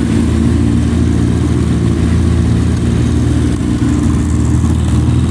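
A 1999 Suzuki GSX-R1100's inline-four engine idling steadily and running smoothly, with no revving.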